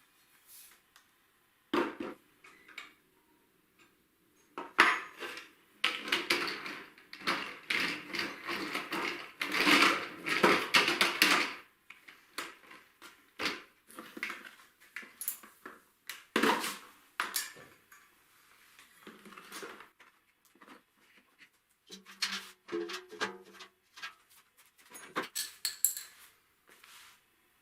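Irregular clattering, knocking and scraping of hard objects being handled, densest for several seconds in the first half, then scattered knocks.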